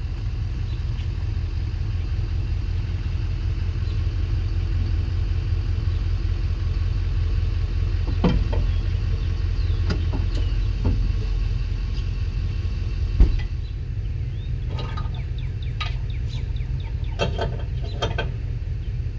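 Pickup truck engine idling steadily as the truck reverses up to a trailer. About 13 seconds in comes a single sharp clunk, and then a run of short metallic clanks and rattles as the trailer coupler and safety chains are hooked to the hitch.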